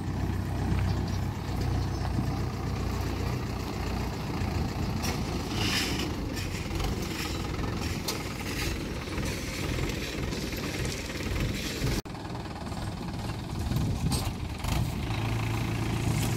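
Mahindra 475 DI tractor's diesel engine running steadily as it tows a loaded trolley, with a few short clatters along the way. The sound cuts about twelve seconds in, and the engine hum comes back near the end.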